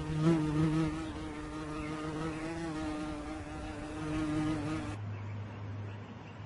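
A steady, pitched buzz that holds one tone for about five seconds and then cuts off suddenly, leaving a fainter low hum.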